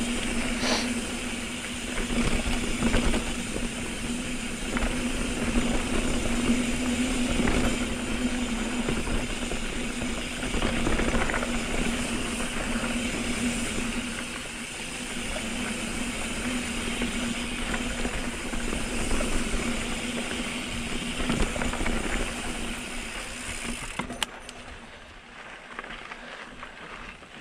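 Mountain bike being ridden over a rocky dirt trail: wind buffeting the microphone, tyres crunching over dirt and rocks and the bike rattling, with a steady low hum. It quietens near the end as the bike slows.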